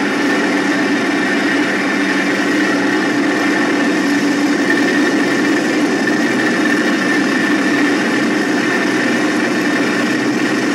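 A vehicle's engine running steadily at a constant speed with a steady whine, heard from on board.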